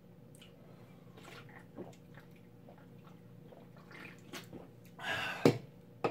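Drinking from an aluminium drink can: soft gulps and liquid sounds. A short loud rush of noise comes about five seconds in, then a sharp clack as the can is set down.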